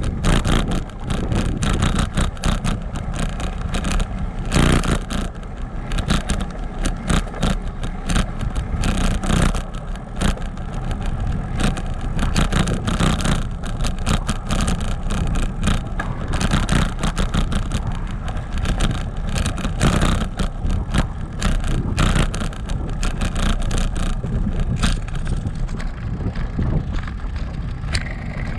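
Bicycle rolling over a brick-paved street: a continuous rattle and jolting from the tyres on the uneven bricks over a steady low rumble. The rattling eases a little near the end.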